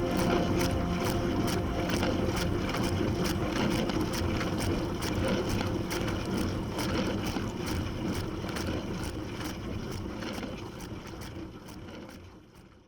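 Dishwasher running, heard from inside the tub: the pump's steady hum under a wash of spraying water, with sharp splashes at an even beat of about two or three a second as the spray jets sweep past. It fades out near the end.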